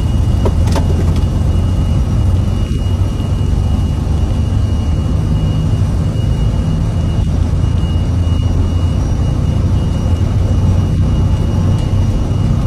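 Jet airliner engines giving a steady, loud low rumble with a constant high whine over it.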